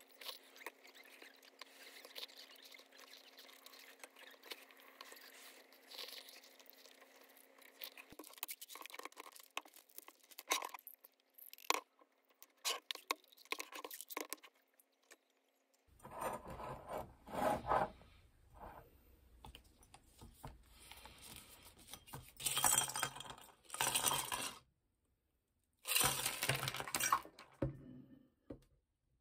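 Small tablets rattling and clicking as they are shaken out of a plastic supplement bottle into its cap. After that, ice cubes clinking and knocking in a glass as it is stirred with a straw, in several louder bursts.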